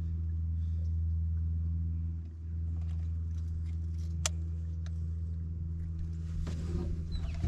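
A small motor on the boat running with a steady, low hum, with a few faint clicks and knocks from handling, and a short rustle near the end.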